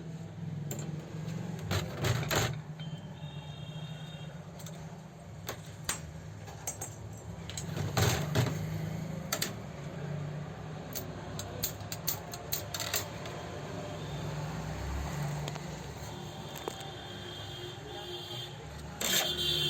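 Small metal parts and tools clicking, knocking and scraping at irregular moments as an overlock sewing machine is worked on by hand, over a steady low hum.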